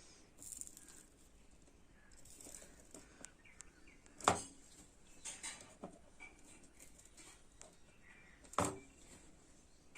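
Quiet handling noises: faint rustles and light taps, with two sharp knocks, one about four seconds in and one near the end.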